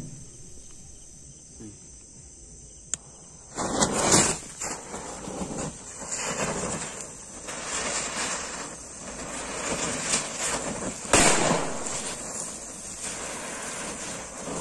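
A row of homemade firecrackers burning: a sharp click about three seconds in, then a hissing, crackling spray of sparks that swells and fades in waves, with loud bursts about four and eleven seconds in.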